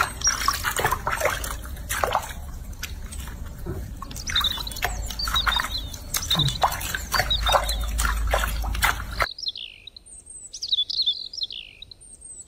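Water splashing and dripping in a sink as a baby monkey is washed by hand, with high chirps over it from about halfway in. About nine seconds in, the splashing cuts off and only a few high, falling chirps remain.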